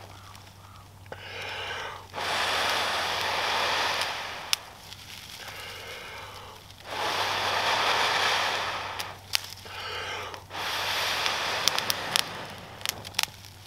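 A person blows long, steady breaths into a smoking bundle of dry grass to coax a ferro-rod ember into flame: three long blows with shorter breaths between them. Sharp crackles come near the end as the tinder starts to catch.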